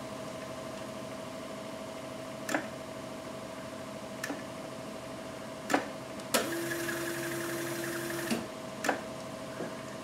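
Sharp, scattered clicks as a Chevy small-block's HEI distributor with a magnetic pickup is rocked by hand with the engine stopped: each time the pickup fires, it triggers the timing light and, it sounds like, the fuel injectors. A faint steady hum runs underneath, and after one click about six seconds in, a steady sound holds for about two seconds.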